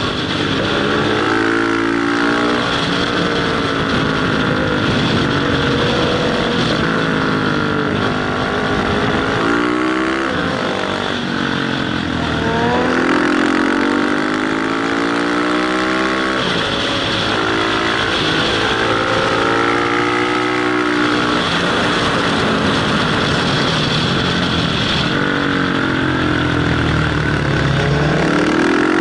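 Motorcycle engine heard on board at speed, revving up through the gears again and again and dropping back between pulls, with a steady rush of wind over it.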